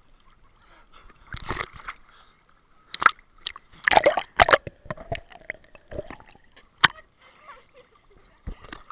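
Sea water splashing and sloshing around a swimmer treading water, slapping against a waterproof camera held at the surface as it dips in and out. The splashes come irregularly, the loudest a little after three and four seconds in.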